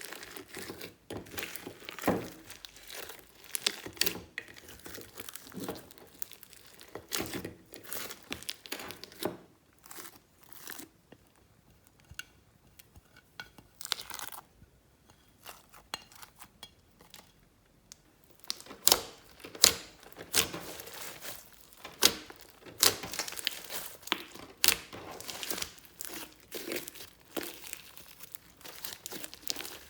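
Glossy slime being kneaded and pressed by hand, making a dense run of sticky clicks, pops and crackles; it goes quieter for several seconds midway, then picks up again.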